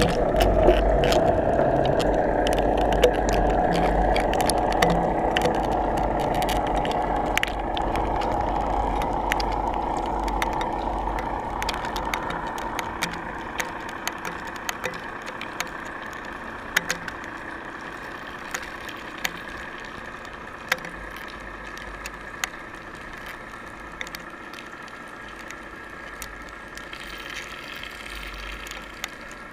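Muffled underwater rushing heard from inside a GoPro's waterproof housing as it sinks on a fishing line, fading gradually, with scattered sharp clicks.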